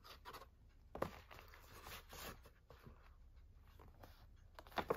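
Soft rustling and crinkling of a folded paper poster being handled, with a few sharper paper crackles near the end.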